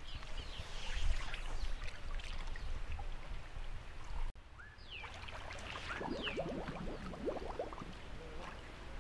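Warm spring-fed pool water sloshing and splashing around a bather wading and dipping in it, with a steady low rumble and short high bird chirps over it. The sound drops out briefly about four seconds in, at a cut.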